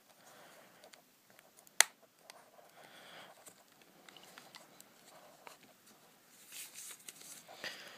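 Plastic case of a TomTom XL GPS unit being handled and pressed together by hand: one sharp click about two seconds in as the case snaps into place, with faint rubbing and handling noise.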